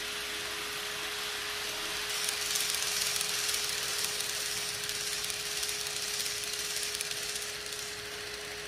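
Model E657 series train running past on the layout: a small electric motor's steady hum with wheel and rail noise, a little louder from about two to six seconds in as it passes.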